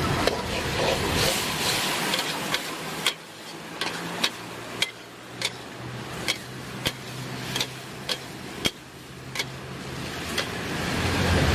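Metal ladle-spatula knocking and scraping against a steel wok during stir-frying, in sharp strikes about one to two a second, over a steady hiss. A motor vehicle's engine rumble grows louder near the end.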